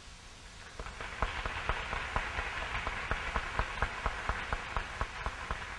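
Audience applause: scattered, irregular hand claps starting about a second in and running steadily.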